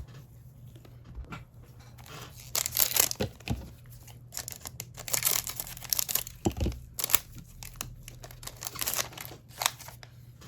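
Trading card pack wrapper being torn open and crinkled: a string of irregular tearing and rustling bursts.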